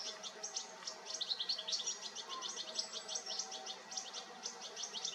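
European goldfinches twittering: a fast, unbroken stream of short, high chirps.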